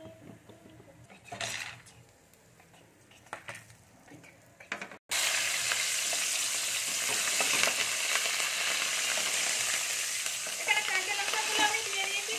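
Chopped green chillies deep-frying in hot oil in a steel frying basket: a loud, steady sizzle that starts suddenly about five seconds in, with a steel skimmer scraping against the basket near the end. Before that, only a few faint clinks from a steel strainer of fried peanuts draining over the pan.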